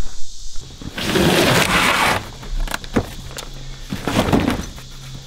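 A long cardboard gate-opener kit box being slid across a pickup's tailgate, one loud scraping rasp followed by a few knocks and thumps, over a steady low hum.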